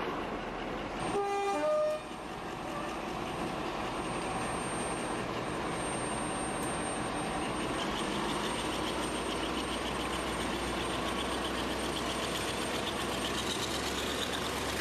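A diesel locomotive horn gives a short two-tone toot about a second in, a lower note then a higher one. After it comes the steady running noise of a train under way behind a Class 35 Hymek diesel-hydraulic locomotive, with engine and wheels on rails, growing a little brighter from about eight seconds in.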